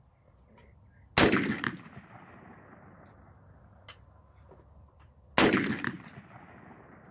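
Two handgun shots about four seconds apart, each a sharp crack that trails off over about a second.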